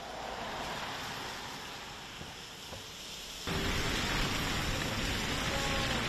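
Steady city street noise: a hiss of traffic on wet, slushy roads. It gets suddenly louder about three and a half seconds in.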